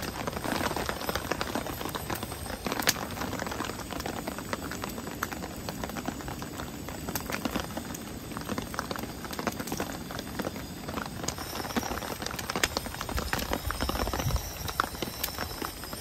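Rain falling, with irregular drops tapping on hard surfaces over a steady hiss, mixed with the light rustle and scrape of a paper drip-coffee bag and a spoon scooping ground coffee.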